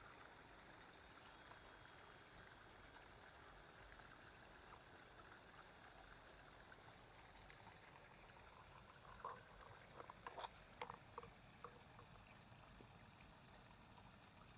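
Near silence: faint outdoor ambience, with a cluster of short, soft clicks or taps about nine to eleven seconds in.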